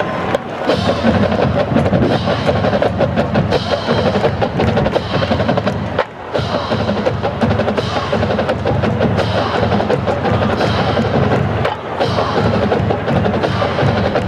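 Marching band drumline playing a fast cadence on snare and bass drums, with short breaks about six and twelve seconds in.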